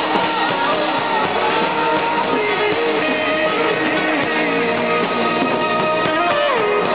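Rock song with electric guitar and held notes that slide in pitch, with a drum kit played along on it, cymbals being struck.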